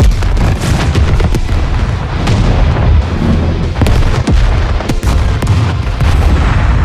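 Battle-style explosion and gunfire sound effects: heavy booms over a continuous low rumble, with many sharp cracks throughout and a loud hit at the very start.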